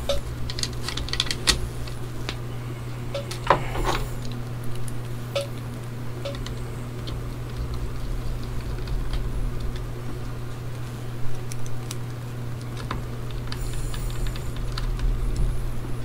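Scattered light clicks, taps and scrapes as a hard drive's circuit board is set onto the drive and its small screws are driven in with a small screwdriver.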